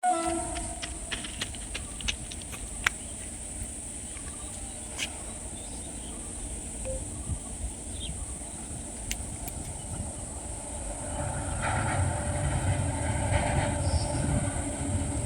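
Train approaching on the rails, its low rumble building from about eleven seconds in. Before that, scattered sharp clicks over a steady high hiss.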